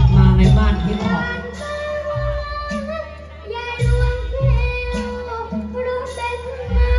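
A child performer singing long, wavering held notes through a stage sound system, over Thai traditional music with deep drum strokes.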